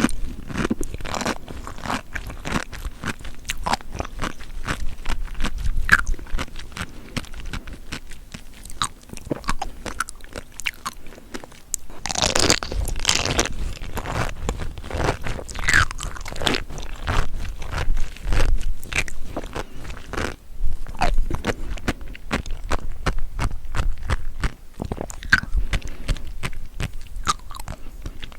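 Close-miked ASMR eating of seafood: steady chewing and biting with many small crunches and crackling pops, and a louder noisy bite about twelve seconds in.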